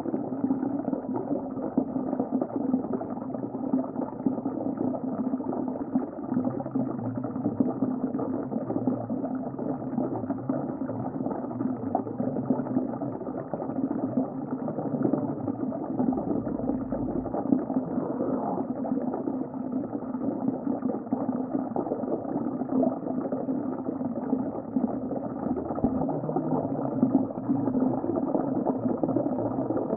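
Underwater ocean ambience: continuous muffled bubbling and gurgling of water, with a steady low hum beneath it.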